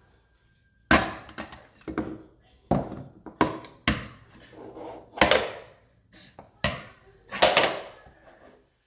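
Plastic bowls knocked and set down on a hard floor by a baby: about ten irregular sharp clacks over several seconds.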